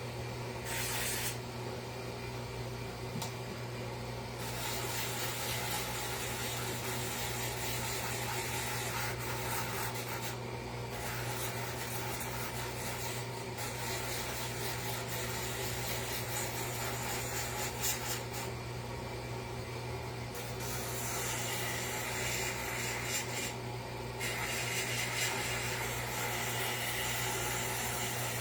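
A small power tool turned down to a low speed runs steadily while it sands and rounds over the edges of a wooden sign. The gritty rasp of the wood being shaped comes and goes with each controlled pass, dropping out briefly several times.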